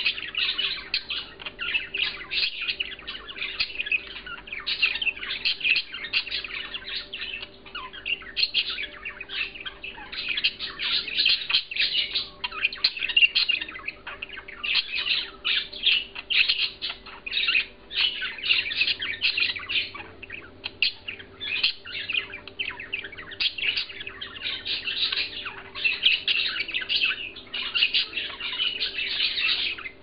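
Budgerigar warbling: a fast, continuous run of chirps and chatter with only short pauses.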